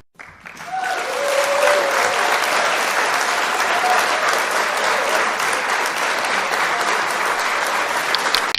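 A crowd applauding: dense clapping that swells in over the first second and then holds steady, with a few faint shouts among it in the first few seconds, cut off suddenly at the end.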